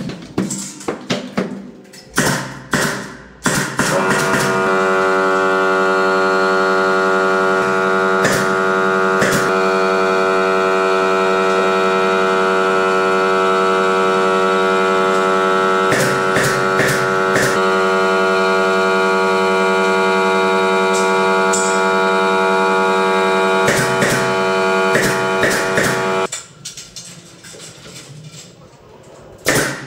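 Sharp knocks for the first few seconds, then an air compressor starts and runs with a steady droning hum, with a few knocks over it, before cutting out abruptly near the end. The compressor is refilling after use of the pneumatic brad nailer.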